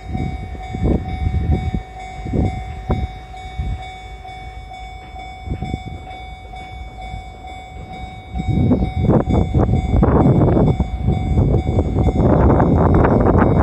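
Japanese level-crossing alarm ringing steadily. From about eight seconds in, the rumble of an approaching electric train builds and grows loud.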